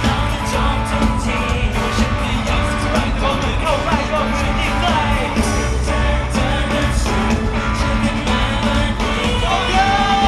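Live pop song played over a concert PA: a steady drum beat and heavy bass with male voices singing into microphones.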